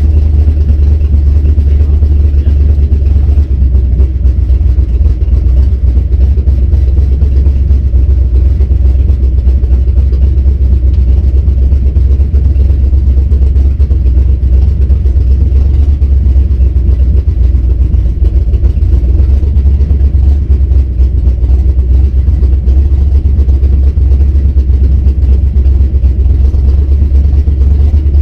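Cammed 351 Windsor V8 in a Fox-body Mustang idling, heard from inside the cabin: a loud, steady low rumble with no revving.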